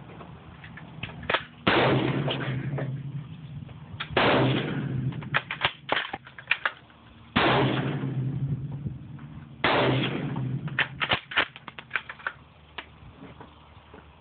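Four gunshots about two to three seconds apart, each ringing out in a long echoing tail, with smaller sharp cracks and clicks between them.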